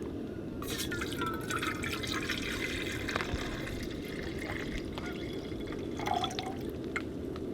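Water being poured into a cooking pot for boiling, a steady filling and trickling that starts about half a second in.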